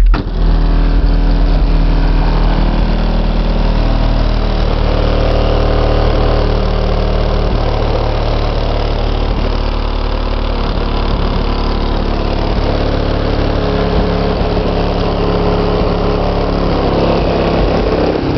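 Two Fi Audio BL 18-inch subwoofers, driven by a JBL Crown GTI A6000 amplifier, playing a song's bass very loud with the vehicle's hatch shut. The low notes change pitch every second or two.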